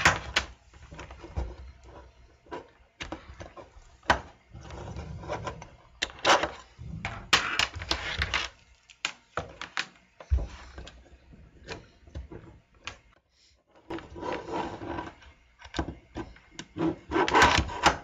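A coaxial cable being handled and connected to bench test equipment: irregular clicks, knocks and rustles of the cable and its connectors.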